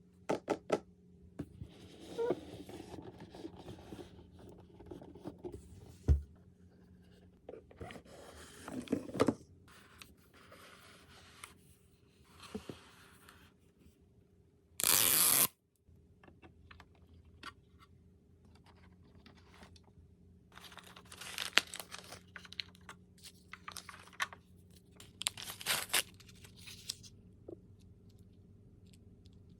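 Mini Brands capsule packaging being torn open and crinkled by hand, with small plastic clicks and taps from the miniature toys being handled. A loud ripping tear comes about halfway through and lasts about a second.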